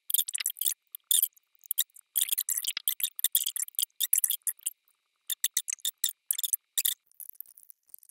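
A pen scratching on paper in short, irregular strokes as someone draws, stopping about seven seconds in.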